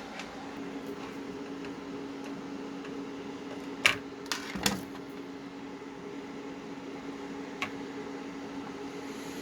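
A steady machine hum with a low, even tone, broken by a few sharp clicks: three close together about four seconds in and one more near eight seconds.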